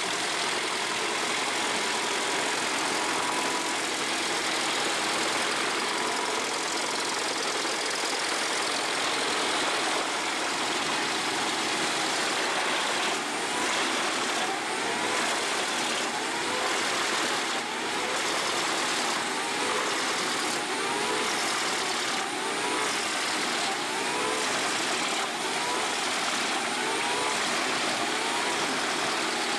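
A 550 HP industrial wood shredder running with a steady, dense machine noise. From about halfway through, a rising-and-falling tone repeats every second or two.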